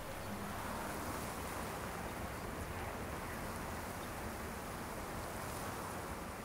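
Steady, even outdoor rushing noise, like wind on the microphone, with no distinct events.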